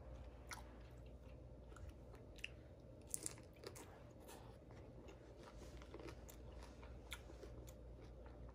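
Faint sounds of a person biting and chewing a consommé-dipped beef birria taco: soft chewing with a few scattered crunches and clicks, a cluster of them about three seconds in.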